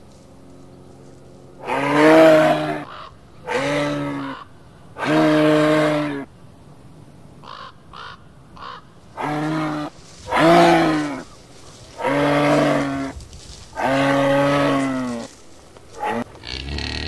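A series of seven drawn-out animal calls, each about a second long: three in the first six seconds, a pause with a few faint clicks, then four more.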